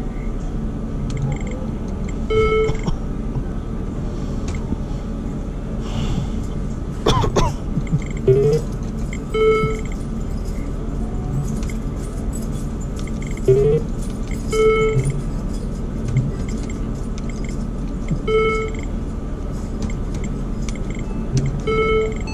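Video poker machine beeping and chirping as hands are dealt, cards held and drawn: short electronic beeps about five times, a couple of quick rising chirps and a brief clatter about seven seconds in, over a steady casino background din.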